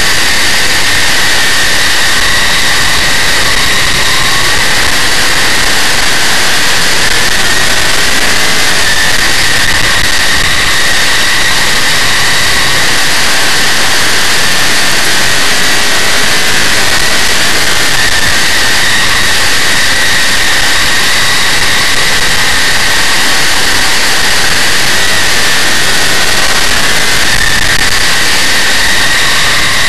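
Big-block Chevrolet V8 of a dirt modified race car running hard at race speed, heard from an onboard camera: a loud, steady engine noise whose pitch wavers up and down through the laps.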